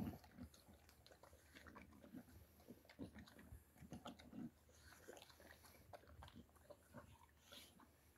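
Boxer dog eating from a stainless steel bowl: faint, irregular chewing and biting.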